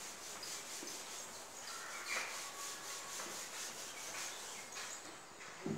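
Whiteboard eraser rubbed back and forth over a whiteboard, wiping off marker writing in quick, evenly repeated soft strokes.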